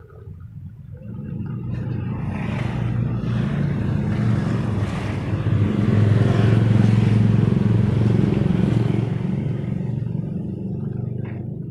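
A motor vehicle's engine passing close by, growing louder to a peak midway and then fading.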